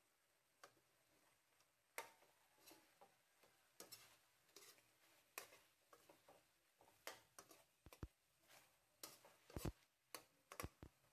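Metal spatula and slotted spoon knocking and scraping against a metal wok while chicken pieces are stirred in sauce: faint, irregular clinks, a few louder knocks near the end.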